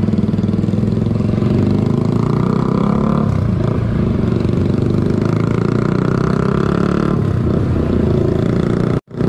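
Motorcycle engine and street-traffic noise heard from a helmet-mounted camera while riding slowly through traffic. The steady low rumble of engines is joined twice by a higher engine note of a nearby vehicle. The sound cuts out for a split second near the end.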